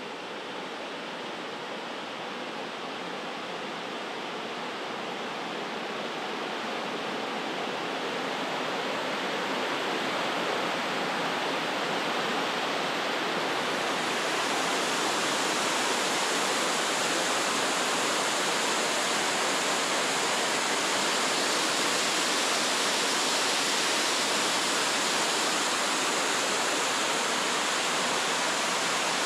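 Water rushing down a reservoir's stepped stone spillway chute in a steady cascade. It grows louder over the first half as it is approached, then holds steady.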